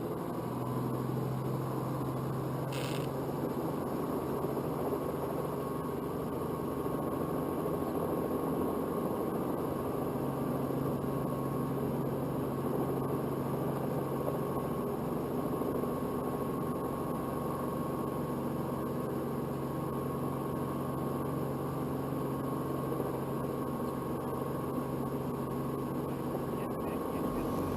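Robinson R44 helicopter running steadily, a constant mechanical hum with a strong low tone and no change in pitch. A brief faint click comes about three seconds in.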